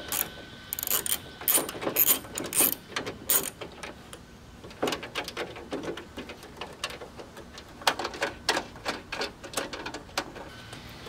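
Socket ratchet clicking in several short runs of quick clicks as it backs off the 10 mm nuts holding a brake light assembly on the underside of a trunk lid.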